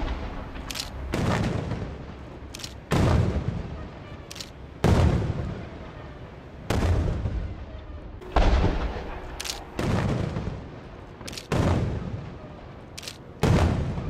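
Aerial firework shells bursting overhead: a deep boom about every two seconds, each trailing off in a rumble over a second or so, with short sharp cracks between the booms.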